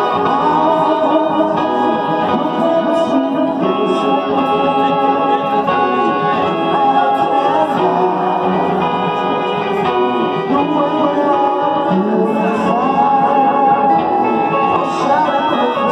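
Live rock band music, loud and continuous, with an electric keyboard playing long sustained chords.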